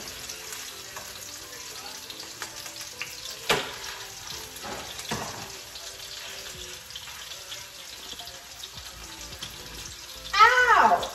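Ricotta meatballs sizzling steadily as they fry in oil in a pan, with a single sharp tap about three and a half seconds in. A short burst of voice near the end is the loudest sound.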